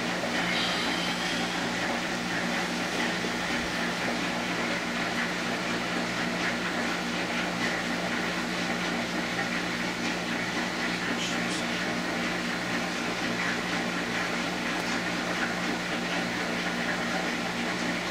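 Steady electric machine hum with a broad hiss, unchanging throughout, with a few faint light taps and rustles on top.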